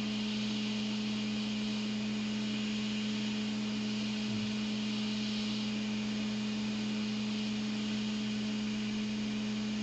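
A steady electrical hum over an even, fan-like hiss, holding at one level with no clicks or changes.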